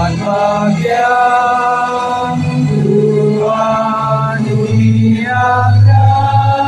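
Music with a choir singing long held notes over a low, sustained accompaniment, the pitch moving in slow steps from note to note.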